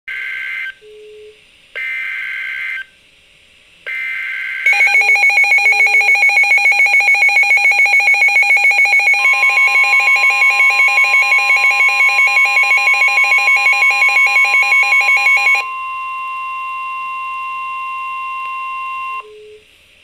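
S.A.M.E. weather alert radio receiving a flood warning. It plays three short bursts of warbling SAME digital header data, then sounds its own loud pulsing alert beep, about five pulses a second, for about eleven seconds. Partway through the beeping, the steady 1050 Hz National Weather Service warning tone comes in and carries on alone for a few seconds after the beeping stops.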